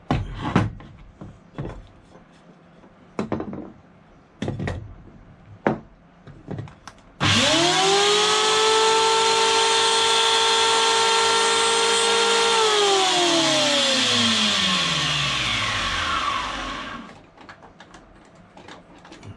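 A few handling knocks and clicks, then a Bosch electric hand planer switched on about seven seconds in. Its motor whines at a steady pitch for about five seconds while a strip of wood is held against the sole over the cutter. It is then switched off and winds down, the whine falling in pitch over about four seconds.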